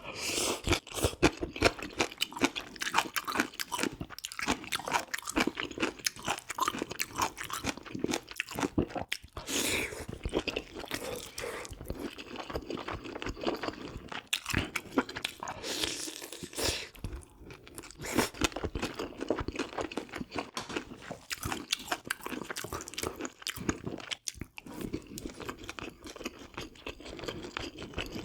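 Close-miked eating sounds: a person chewing and biting into spicy braised pork ribs, a dense, continuous run of small mouth clicks and smacks.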